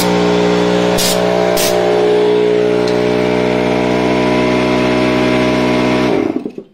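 Stanley portable air compressor's electric motor and pump running steadily, with two short hissing blasts of compressed air from a blow gun about a second in. Near the end the compressor cuts out and winds down to silence.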